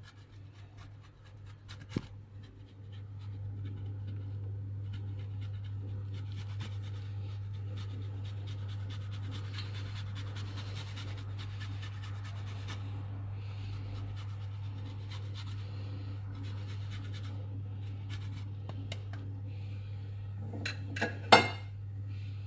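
Pecorino cheese being grated by hand, with faint repeated scratching strokes over a steady low hum. A sharp knock comes near the end.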